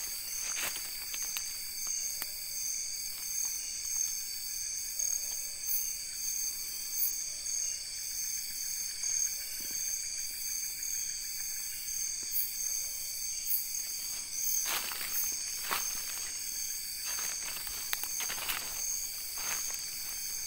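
Night insect chorus, a steady high-pitched trilling. In the last few seconds come several footsteps through leaf litter and undergrowth.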